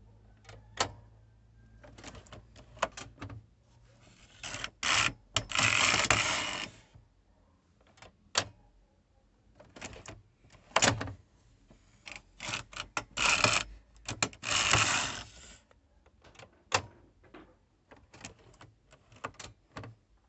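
Brother KH800 knitting machine: a carriage is pushed across the needle bed twice, each pass a rattling slide of about three seconds, about four seconds in and again about twelve seconds in. Scattered clicks and clacks of the machine's parts being handled fall before, between and after the passes.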